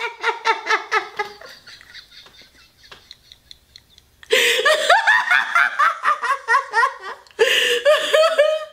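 A woman laughing hard in quick bursts that fade out over the first second or so. After a quiet couple of seconds she breaks out laughing loudly again about halfway through, with high sliding whoops, and keeps laughing to the end.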